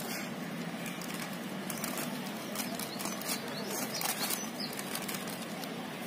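Clear plastic wrapping rustling and crinkling as a gift is unwrapped by hand, with small irregular crackles throughout.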